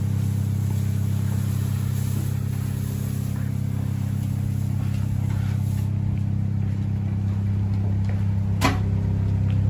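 Steady low engine hum, typical of a farm loader's diesel idling, with one sharp knock near the end.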